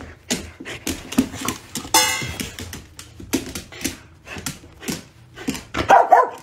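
Irregular clicking, clattering and clinking of stainless-steel dog bowls in a raised feeder as a dog noses at them. About two seconds in, one metal bowl is struck and rings out. Near the end comes a short, loud pitched sound.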